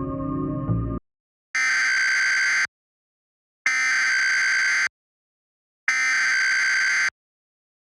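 Ambient music cuts off about a second in. It is followed by three identical bursts of the Emergency Alert System's SAME header, the warbling digital data tones that open an EAS alert, each just over a second long with about a second of silence between them.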